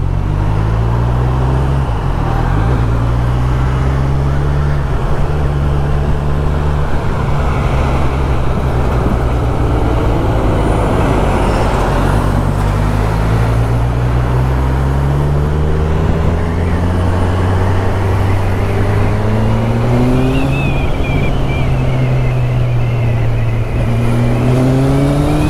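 Kawasaki Z1000SX (Ninja 1000) inline-four engine accelerating through the gears. Its pitch climbs, then drops at each upshift, over wind and road noise.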